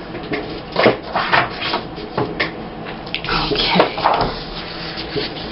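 Paper and cardstock being handled at a craft table: irregular rustling, sliding and light taps as sheets are picked up and laid on the page.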